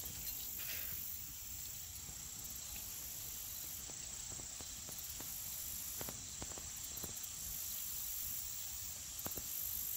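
Quiet outdoor ambience with a steady high-pitched insect chorus and a few faint clicks.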